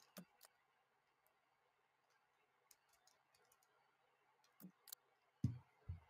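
Faint clicking of a 3x3 speedcube being turned rapidly, ending with a couple of thumps near the end as the solved cube is set down and the hands hit the timer pads to stop the timer.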